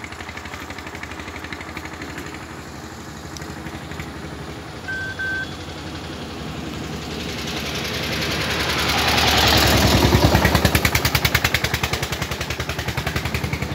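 A vehicle engine throbbing with a rapid, even pulse, growing louder to a peak about ten seconds in and easing off a little near the end, as it passes close by. About five seconds in there are two short, high beeps.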